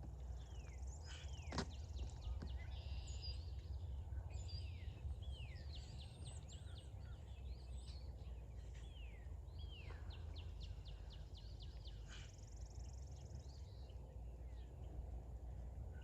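Wild songbirds singing and chirping: many short falling whistled notes, and a quick trill of rapidly repeated notes about two-thirds of the way in. A steady low rumble runs underneath.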